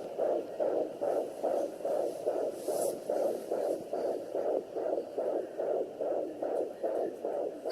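Fetal heartbeat picked up by a Sonoline B handheld fetal doppler: a fast, even run of whooshing pulses from its speaker, a little under three beats a second, the rapid rate of a 19-week fetus's heart.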